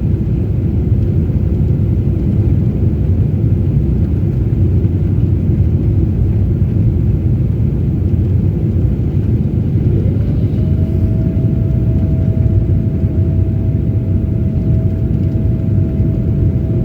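Steady low rumble of a jet airliner. About ten seconds in, a single whining tone rises and then holds steady.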